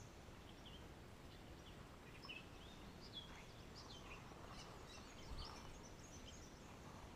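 Near silence: faint songbirds chirping in short, scattered calls over a low outdoor hush, with one soft low bump a little after five seconds in.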